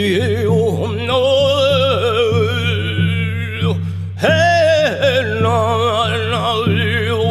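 A man singing long, wavering vocal lines with heavy vibrato over a steady low drone, pausing for a breath about halfway through before coming back in louder.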